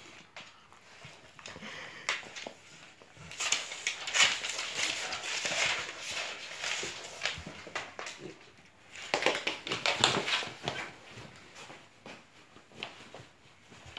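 A Jack Russell terrier and a St Bernard play-wrestling on a wooden floor: noisy scuffling with clicks of paws, coming in two bouts, one from about three to six seconds in and a shorter one around nine to ten seconds in.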